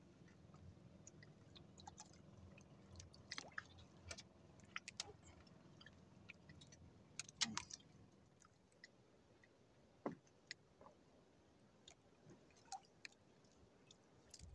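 Near silence with faint scattered clicks and taps from hands handling a fishing hook and handline in a small boat. A few sharper ticks stand out, the loudest about seven and a half seconds in.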